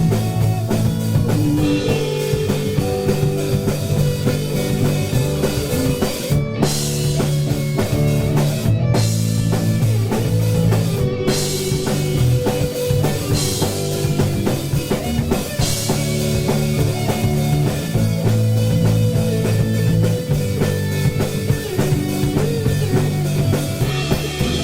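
Live rock band playing an instrumental passage between vocal lines: electric guitar and drum kit, loud and continuous.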